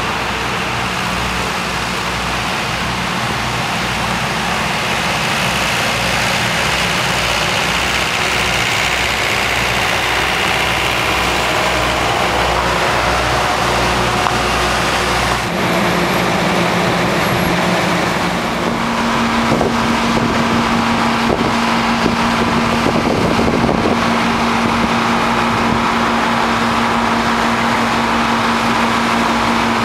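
Steady road noise of a moving motor vehicle, an even rushing hiss, with a low steady hum joining a little past the middle.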